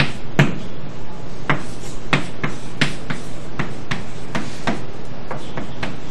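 Chalk writing on a blackboard: an uneven run of sharp taps, about two a second, as the chalk strikes and strokes the board.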